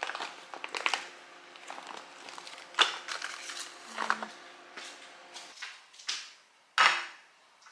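Plastic packaging crinkling and rustling as toiletries are handled and packed into a clear zip pouch, with sharp knocks on the counter. Near the end comes a single loud clatter as a plate is set down.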